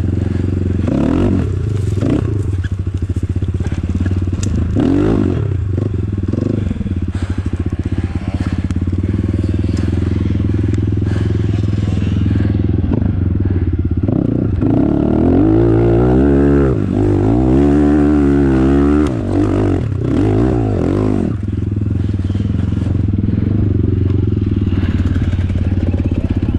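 Enduro dirt bike engine running at low revs while riding rough ground, with scattered knocks and rattles. In the middle it revs up and down several times.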